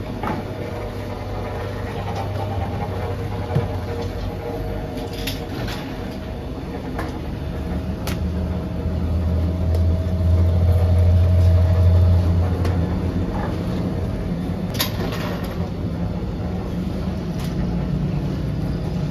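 Steady low mechanical hum and rumble of bakery equipment that swells louder for a few seconds in the middle, with a few sharp knocks and clicks over it.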